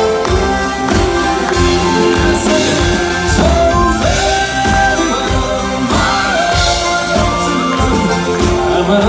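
Live band playing an up-tempo Irish-style instrumental break, with fiddle, accordion, electric guitar and drum kit keeping a steady beat, and the audience clapping along.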